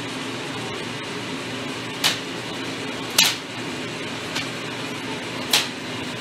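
A steady fan-like hum, broken by four sharp clicking taps at irregular intervals, the third one faint.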